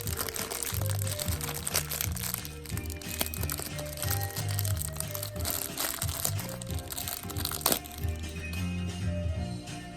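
Background music with a bass line, over plastic packaging crinkling and rustling as it is handled and opened, with a sharp click about three-quarters of the way through.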